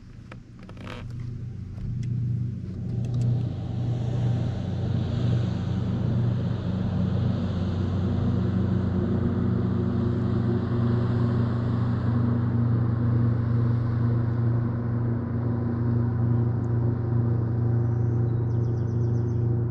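Outboard motor of a passing boat running at speed, growing louder over the first three seconds and then holding steady.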